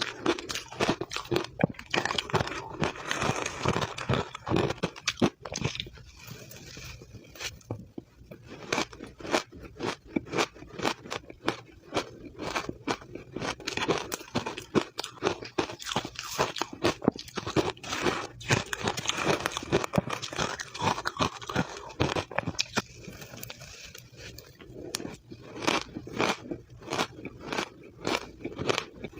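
Close-up crunching and chewing of blended, powdery frozen matcha ice: dense, irregular crisp crunches in quick clusters, bite after bite.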